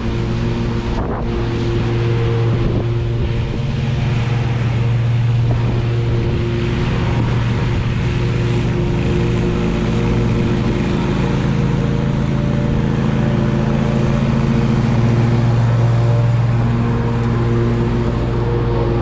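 Exmark Stander stand-on mower running steadily at speed with its blades spinning, mowing and bagging leaves into a steel side bagger.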